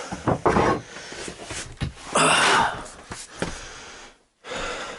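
A man breathing hard after strenuous work, with one loud gasping exhale about two seconds in, and a few short knocks around it.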